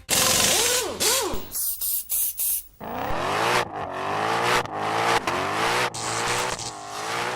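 Car engine revving, its pitch rising and falling repeatedly, with loud bursts of rushing noise in the first few seconds.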